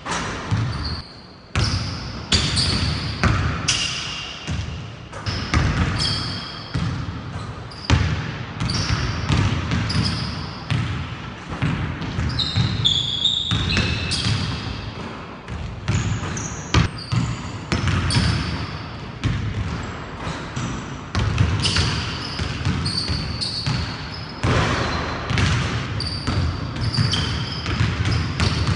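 Basketball dribbled hard and repeatedly on a hardwood gym floor, a quick run of sharp bounces, with sneakers squeaking on the court now and then.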